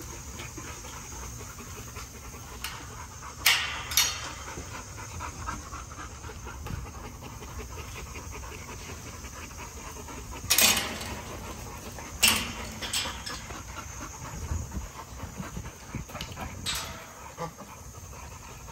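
An American bully dog panting steadily. Several sharp knocks cut through it: two close together a few seconds in, then more near the middle and toward the end.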